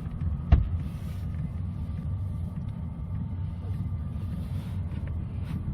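Voyocht Chinese diesel air heater running under the seat cushions: a steady low rumble with a faint steady whine above it, quiet enough that you can barely hear it. One thump about half a second in.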